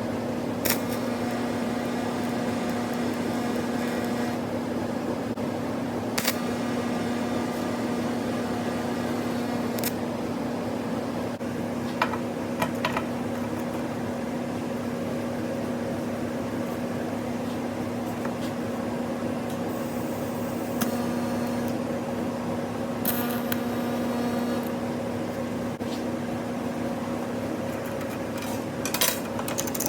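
Steady machine hum with a low, even drone, over which a handful of sharp metal clinks and knocks sound now and then, a few ringing on briefly; a cluster of them comes near the end.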